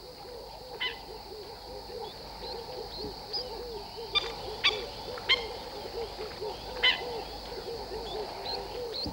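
Wild birds calling: a steady run of short, low repeated notes, several a second, with higher chirps and a few sharp calls over them.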